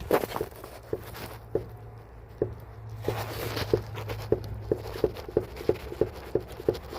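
Worn shock absorber top mount on a Mercedes W211 knocking under test: short, light knocks repeating about three times a second, over a low hum. The knock is the sign of the failed top mount behind the car's clunk over bumps.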